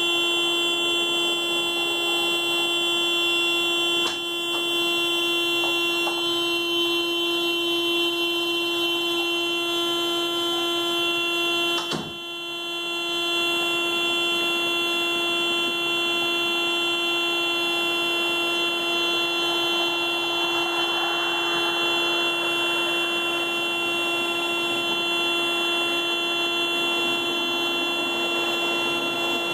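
Car alarm sounding the car's horn continuously as one steady, unbroken tone. There is a click and a brief dip about 12 seconds in.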